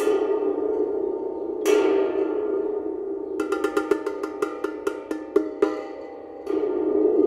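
Homemade spring drum (thunder drum): a metal can with a coiled spring screwed into a hole in its bottom, shaken so the spring vibrates and the can bottom resonates, making a sustained metallic thunder-like rumble. There is a sharp strike with a long ringing decay about a second and a half in, then a rapid run of rattling clicks through the middle, and the rumble swells again near the end.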